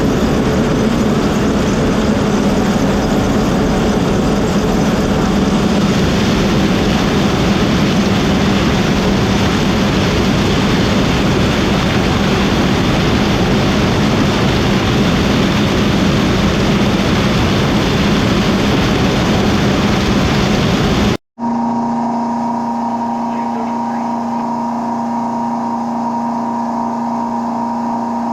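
Combine harvester running while harvesting corn: a loud, steady mechanical rush with a constant hum. About three quarters through it cuts off abruptly, giving way to a quieter, steady engine hum at a fixed pitch.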